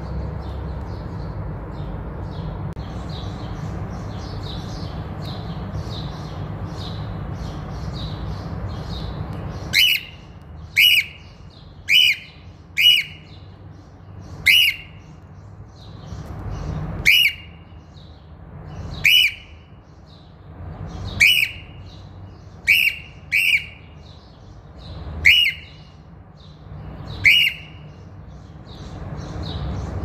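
A cockatiel giving about a dozen short, loud, shrill calls at uneven one-to-two-second gaps, starting about a third of the way in. Before the calls, soft chirps sit over a steady low rumble.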